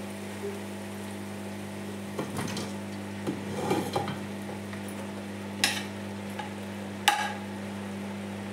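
A metal spoon scraping and clinking against a plate and a stainless steel pot as pieces of cooked rabbit are pushed off the plate into frying vegetables, with two sharp clinks in the second half. A steady low hum runs underneath.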